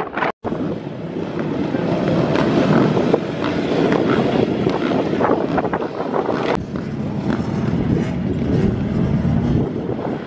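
Several off-road motorcycle and quad bike engines running together, with wind buffeting the microphone. The sound drops out for an instant near the start.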